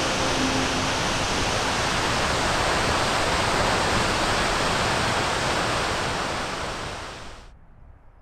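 Steady, even rushing outdoor ambience that fades out about seven seconds in.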